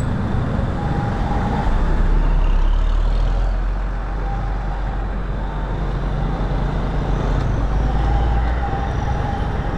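Road noise of a manual-clutch motorcycle ride in heavy traffic, with engine hum and wind on the microphone. A deep low rumble of heavy vehicles swells about two seconds in and eases off near the end.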